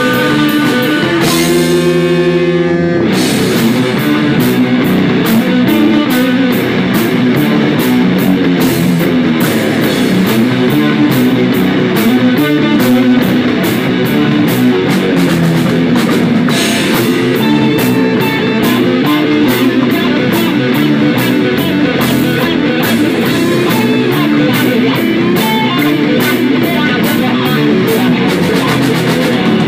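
Live heavy rock band playing loud: distorted electric guitars over a drum kit with steady cymbal strokes. About two seconds in, a single held guitar chord rings on its own before the drums and full band come back in.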